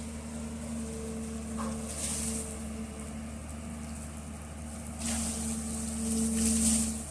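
Hyundai 215LR long-reach excavator's diesel engine running with a steady hum, with a short swell of hissing about two seconds in and a longer, louder one from about five seconds in to near the end.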